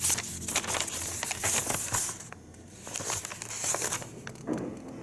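Thin paper rustling and crinkling as a folded booklet is flipped through and opened out by hand. The crackling is busiest in the first two seconds, dips briefly, then comes again around three to four seconds in.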